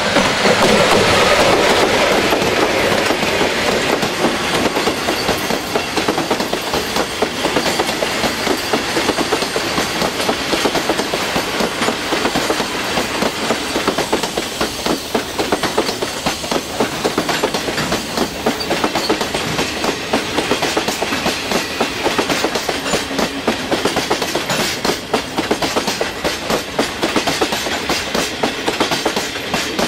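A freight train of Taki 1900 cement tank wagons rolls past at close range, its wheels clacking steadily over the rail joints. The pair of ED45 electric locomotives at its head passes first and is loudest. The clacking thins and fades near the end as the last wagon goes by.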